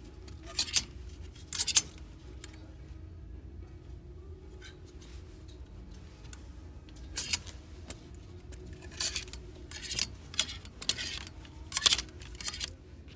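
Clear plastic clothes hangers clicking and scraping along a metal rack rail as shirts are pushed aside one at a time. A few sharp clicks come in the first two seconds, then a quick run of them from about seven seconds in.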